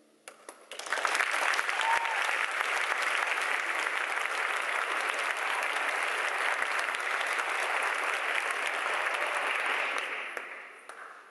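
Audience applauding: a few scattered first claps, then steady applause that dies away near the end.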